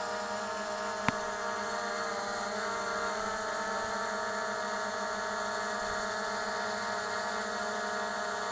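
ZLRC SG906 Pro quadcopter hovering, its brushless motors and propellers giving a steady hum of several unchanging tones. A single sharp click about a second in.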